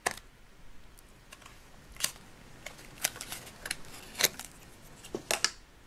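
Irregular light clicks and taps of plastic Play-Doh toy pieces (cup, can and scoop tool) being handled on a tabletop, with a few sharper taps about two, four and five seconds in.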